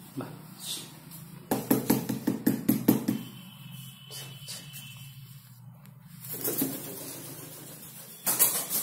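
A pigeon's wings flapping in rapid claps, about eight a second, for a second and a half. Shorter bursts of flapping come later. A low steady hum runs underneath.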